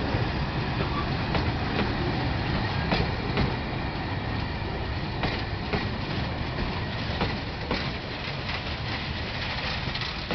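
Narrow-gauge railway carriages rolling past at close range: a steady rumble of wheels on rail, with sharp clacks at uneven spacing as the wheels run over rail joints, slowly getting quieter.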